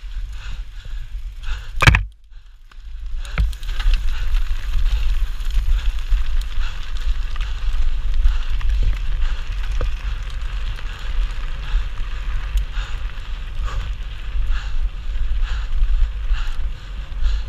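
Mountain bike ridden fast downhill on a loose dirt and gravel trail: heavy wind rumble on the GoPro Hero 4's microphone over the crackle of tyres on gravel and the bike rattling over bumps. A sharp loud knock about two seconds in is followed by a sudden lull of about a second, then the riding noise resumes.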